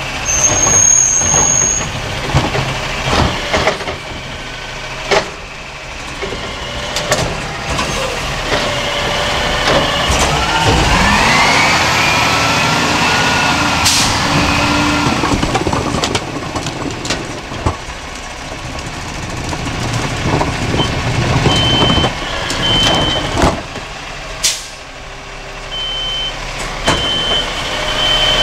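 Peterbilt 320 garbage truck with a DaDee Scorpion automated side-loader arm working a stop: clattering knocks as the arm grabs and tips a cart, then the engine revs up with rising pitch as the truck pulls ahead. Near the end a high, intermittent warning beep repeats as the arm dumps the next cart.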